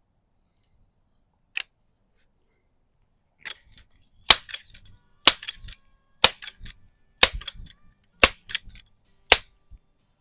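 Pump-up Rochester Precision air rifle: a single sharp click about a second and a half in, then the pump lever worked in six even strokes about a second apart, each a sharp clack followed by lighter clicks. The pump works easily.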